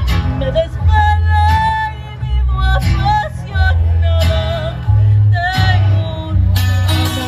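A woman singing live into a microphone over amplified backing music with a heavy bass, heard through outdoor PA speakers.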